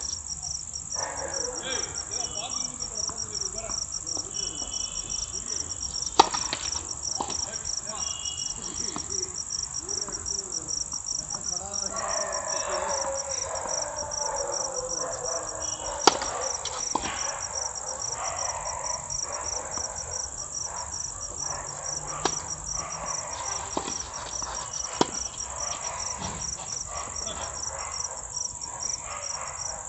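Crickets trilling in a steady, fast pulse, with a few sharp tennis-ball strikes off rackets, the loudest about six and sixteen seconds in.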